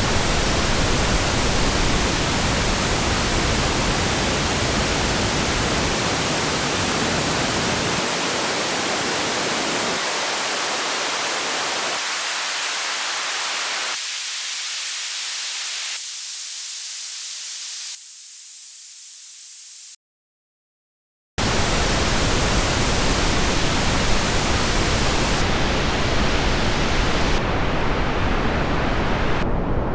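White noise run through a 12 dB-per-octave analog high-pass filter, its cutoff stepped up about every two seconds so the hiss thins and gets quieter. After a short silence the full hiss returns through the low-pass filter, its cutoff stepped down about every two seconds so the hiss grows duller.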